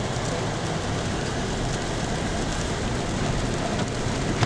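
Steady road noise of a vehicle driving on snow-covered streets: an even hiss from the tyres.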